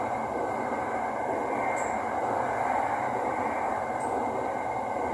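Steady running noise inside an SRT Light Red Line electric commuter train at speed: an even rush and rumble of wheels on rail and air, with a faint steady whine and a couple of brief high ticks.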